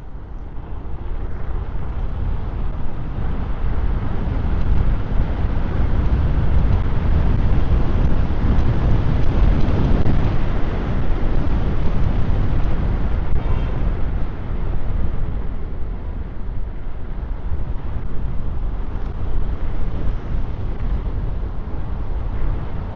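Rushing wind over the microphone and road rumble from an electric scooter riding fast. It builds over the first few seconds and is loudest about ten seconds in.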